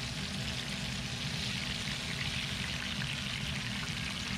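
Breaded catfish fillets frying in hot oil in a cast-iron skillet: a steady sizzle.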